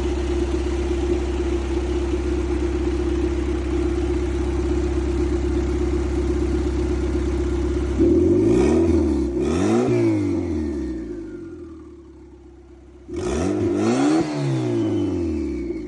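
Turbocharged Honda H22 four-cylinder engine idling steadily, then revved in two quick blips about halfway through, and revved twice more near the end.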